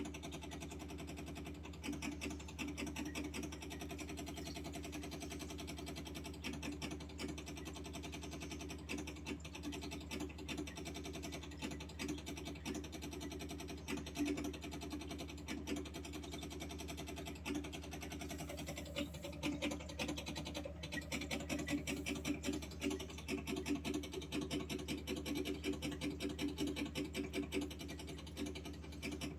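AO Smith Z2 Pro under-sink water purifier running with a steady low hum and a fast buzzing rattle: the abnormal noise the owner is complaining of. The pitch shifts briefly about two-thirds of the way through.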